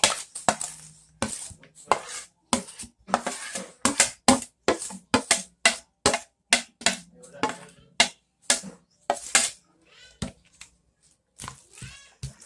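Chopped onions and garlic being scraped off a plate into a plastic mixing bowl: a quick, irregular run of short scrapes and knocks that thins out near the end.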